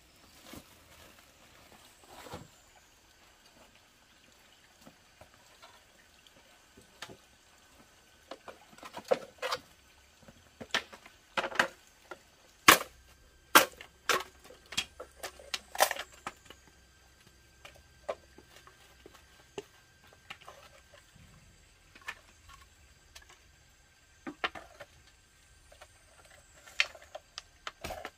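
Irregular sharp knocks and snaps, loudest and most frequent in the middle of the stretch.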